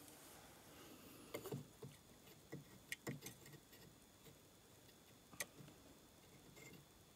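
Light metallic clicks and taps of a caliper being opened and set against a milled casting in a vise: a handful of faint clicks over the first few seconds and one sharper click about five seconds in, over near silence.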